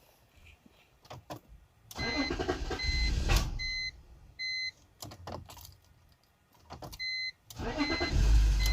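BMW 325xi straight-six being cranked by the starter twice, with a dashboard warning chime beeping in between: the first crank about two seconds in does not catch, the second near the end fires and runs. It is a crank-no-start that the owner puts down to a weak in-tank fuel pump giving too little pressure.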